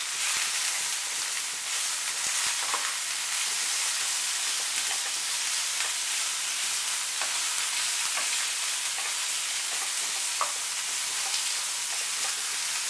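Sliced star fruit sizzling in hot oil in a frying pan, stirred with a wooden spatula that scrapes and taps against the pan now and then.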